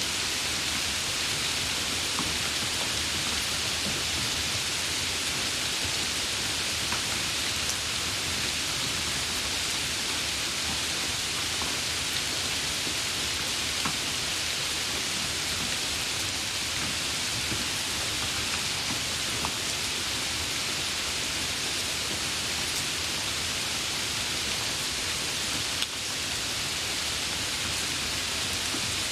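Steady rain: a dense, even hiss of falling rain with scattered individual drop ticks.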